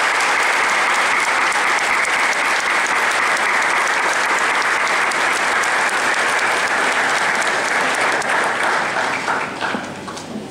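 Audience applauding, a dense steady clatter of many hands that dies away about nine to ten seconds in.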